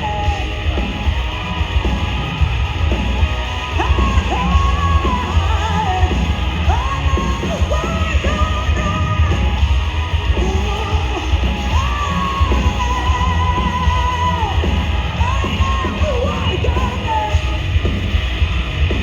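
Live rock band playing loud, with a heavy, steady low end and a voice yelling and singing over it in long, bending notes.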